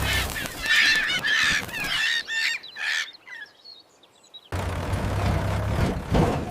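Several honking, goose-like fowl calls in the first couple of seconds, then a brief near-silent gap. About four and a half seconds in, a tractor engine's low, steady running starts again.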